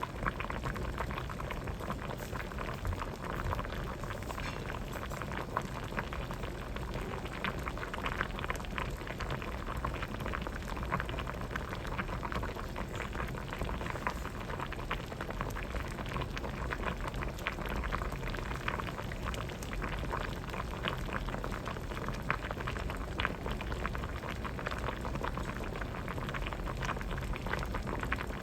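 Pot of vegetable soup boiling steadily, a constant rapid patter of bubbles popping at the surface.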